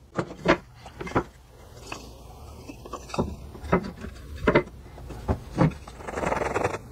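Pieces of pallet wood being handled and set down on a wooden workbench: scattered light knocks and clacks of wood on wood, with some rubbing. A short rustling scrape comes about six seconds in.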